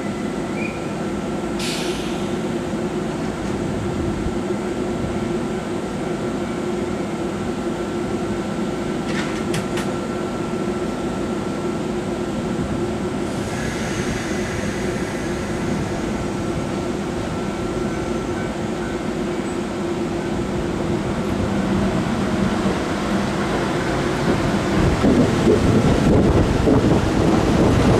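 Kintetsu 12200 series limited express electric train waiting at the platform, its onboard equipment humming steadily, with a couple of sharp clicks. Near the end it pulls away, and the sound of its motors and wheels grows louder as the cars pass.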